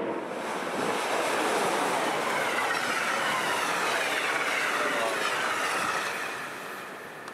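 Amtrak passenger train passing at speed: a loud, steady rush of wheels on rail and moving air, with a whine that falls in pitch. It fades near the end as the last cars go by.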